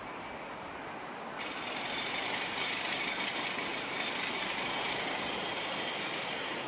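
Airbus A400M Atlas flying overhead, its four turboprop engines and propellers giving a steady rumble. A high-pitched whine comes in about a second and a half in and holds steady.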